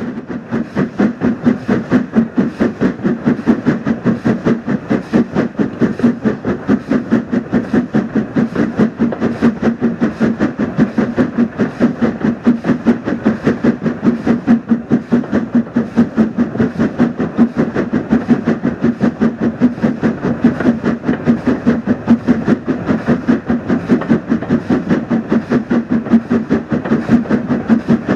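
Steam train running at speed, with a steady, rapid beat of about four to five pulses a second.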